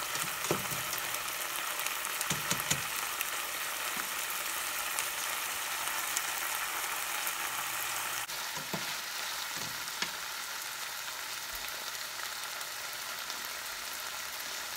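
Ground chicken sizzling steadily in oil in a frying pan, with a metal spatula scraping and knocking against the pan a few times in the first three seconds as it is stirred.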